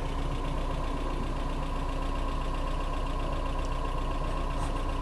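A car engine running steadily, with an even hum.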